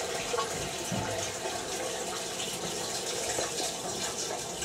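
Steady rush of water running through the house drain plumbing after a toilet flush, with no thump or knock.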